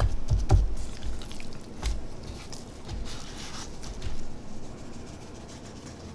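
Raw skirt steak being handled and flipped by a gloved hand on a wooden cutting board: soft wet slaps and thumps, several in the first two seconds and one more about four seconds in.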